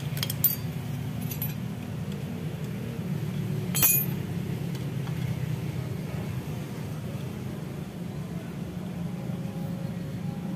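A few sharp metal clinks from hand tools and a loose cam chain being handled on a dismantled motorcycle engine, the loudest about four seconds in, over a steady low hum.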